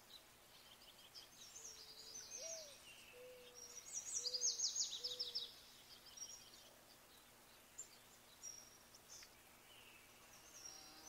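Small birds chirping and trilling in short high phrases, loudest around four to five seconds in, over a faint steady low hum. A run of five short, lower call notes sounds between about two and five seconds in.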